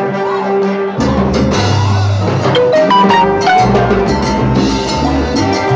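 Live salsa band playing loud. A held note gives way about a second in to bass, drums and percussion, with a quick climbing run of notes near the middle.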